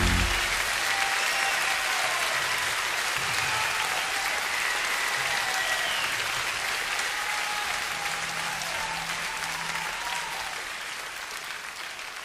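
Concert audience applauding after the song; the band's last low note stops just after the start, and the applause then slowly dies down.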